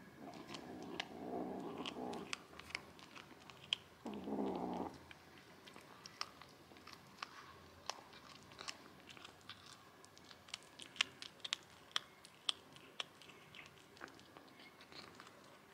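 Tabby kitten chewing and crunching a mouse it has caught, with many sharp crunches. It gives two short cries, one near the start and one about four seconds in.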